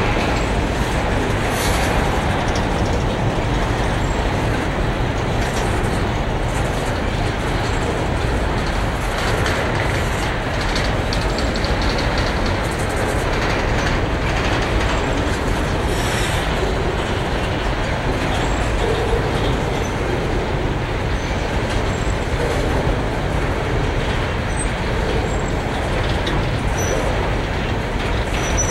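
Covered hopper wagons of a long freight train rolling past at close range: a steady noise of steel wheels running on the rails, with faint clacks every few seconds.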